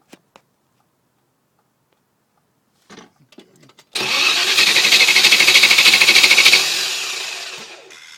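V8 engine being cranked by its starter motor without firing: a fast, even chugging of compression strokes that begins about four seconds in, after a few faint clicks, then fades away toward the end. This is the no-start condition.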